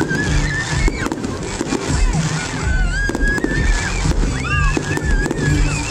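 Aerial fireworks bursting and crackling in quick succession, with high voices in the crowd shouting and screaming, over loud music with a heavy bass line.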